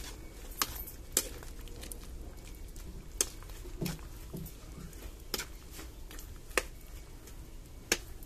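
Wood fire crackling under a wok of simmering chicken feet adobo: sharp irregular pops about every second, over a low steady rumble.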